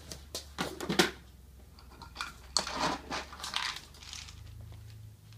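A plastic storage bin of dry kibble being opened, with sharp plastic clicks and knocks in the first second. Then a plastic cup scoops the kibble, which rattles and clatters against the bin about two and a half seconds in.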